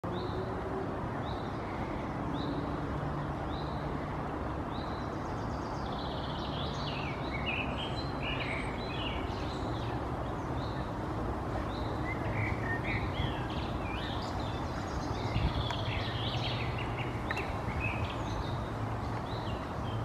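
Great spotted woodpecker nestling calling: short high calls repeated about once a second, then from about six seconds in a long run of fast, dense chattering. A steady low rumble lies underneath throughout.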